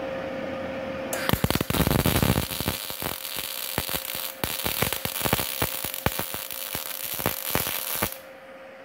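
Multipro MIG/MAG 200G-SP welder arc-welding thin 1.5 mm steel plate at about 55 amps: the arc strikes about a second in and crackles with rapid pops and sputter for about seven seconds, then stops.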